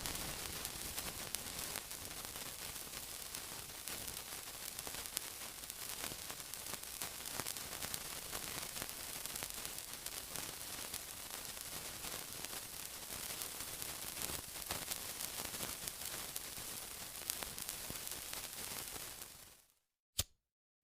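Steady sizzling hiss with scattered fine crackles. It fades out near the end, leaving a brief silence broken by a single click.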